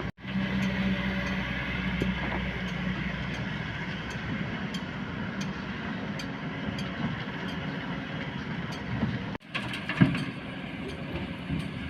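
Kobelco hydraulic excavator's diesel engine running steadily, breaking off briefly twice, with one loud knock near the end.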